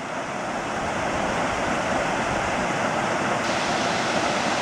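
Steady rushing of Brownstone Falls, a waterfall pouring down a rock gorge.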